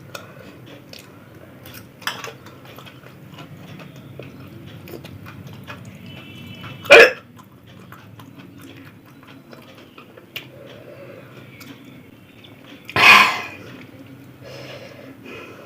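A woman hiccupping while eating: one sharp, loud hiccup about seven seconds in and a longer one near the end, with a faint one about two seconds in. Quiet chewing and mouth sounds run in between.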